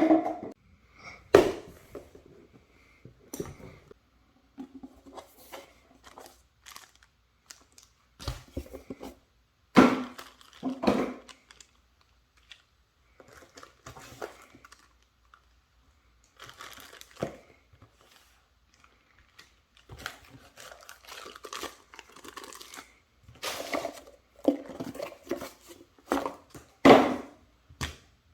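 Product packaging being handled and unwrapped: irregular crinkling, rustling and tearing, broken by several sharper knocks as the box and its contents are handled.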